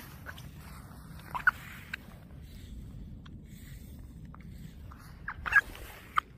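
Thin new ice cracking under load: a few short, chirping pings, one about a second and a half in and a cluster near the end, over a low steady rumble.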